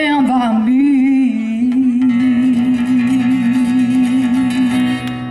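A woman singing one long held note with vibrato over an acoustic guitar. A chord strummed about two seconds in rings on beneath the voice, closing the song.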